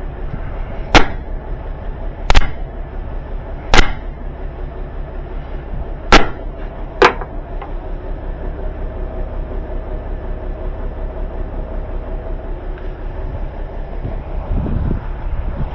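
Five sharp metal clanks of a sledgehammer striking a semi truck's rear brake assembly, the last two closer together, most likely to free a sticking brake. A diesel truck engine idles steadily underneath.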